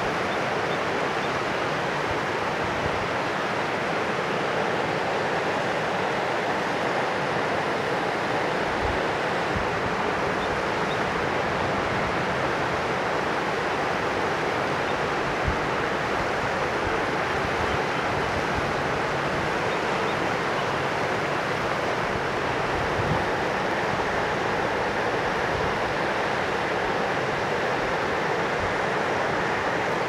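Mountain river rushing as a steady, unbroken wash of water noise. Now and then low bumps of wind hit the microphone.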